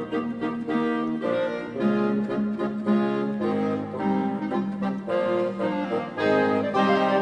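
Background instrumental music: a melody of short held notes over a sustained low note, with a reedy, accordion-like tone.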